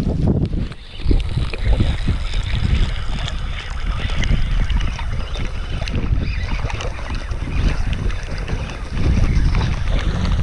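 Wind buffeting the microphone: a continuous rumble with small crackles, rising about a second in and again near the end.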